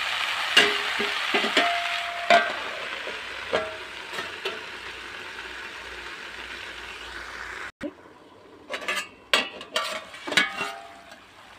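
Vegetables sizzling in a kadhai, with a few sharp metal clinks in the first seconds as a steel plate is set on as a lid, one of them ringing briefly. The sizzle fades and cuts off suddenly near the middle, followed by a quieter run of metal clinks and knocks as the steel lid is lifted off the kadhai.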